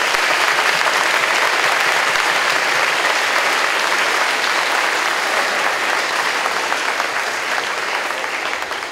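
A large audience of schoolchildren and adults applauding: steady, dense clapping that starts to die away near the end.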